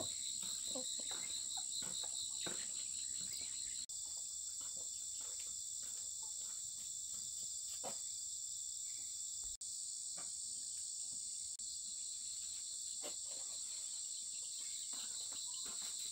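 A steady, high-pitched chorus of insects such as crickets, pulsing quickly for the first few seconds and then holding even, with a few faint ticks and knocks.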